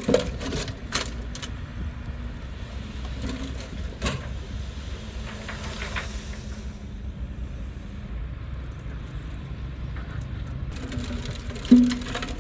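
Heavy earthmoving machine's engine running steadily, with scattered sharp cracks and snaps of wood breaking as vegetation is pushed over. The loudest crack comes near the end.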